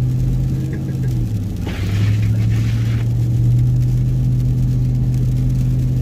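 Pickup truck engine running steadily while driving, heard from inside the cab, with a brief hiss lasting about a second about two seconds in.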